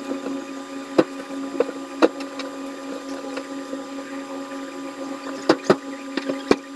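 Steady mechanical hum with a few sharp clicks, about a second in, about two seconds in, and three close together near the end.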